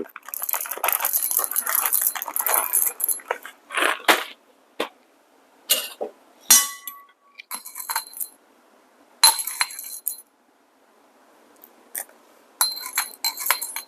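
Coffee beans poured into a container on a scale in a rattling stream, then added a few at a time in short separate rattles and clinks, some with a brief ringing tone from the container, while the dose is brought to 20 grams.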